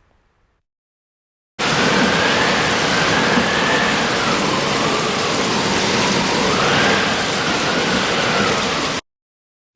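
Steady, dense rushing water noise, like heavy rain, with a faint whistle rising and falling in pitch through it. It starts abruptly about a second and a half in and cuts off abruptly about a second before the end.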